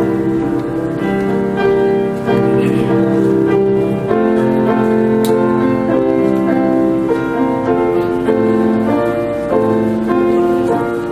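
Slow instrumental offertory music played on a keyboard: sustained chords that change about once a second.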